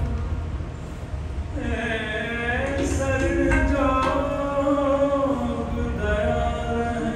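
A male voice singing a Sikh shabad (gurbani kirtan) in classical raga style, drawing out a long, wavering melodic phrase that begins about a second and a half in, over musical accompaniment.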